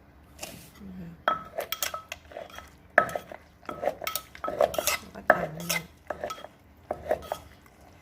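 A kitchen utensil clinking and knocking against a mortar in quick, irregular strikes, each with a short ring, as rice noodles are pounded and tossed into the seasoned dressing.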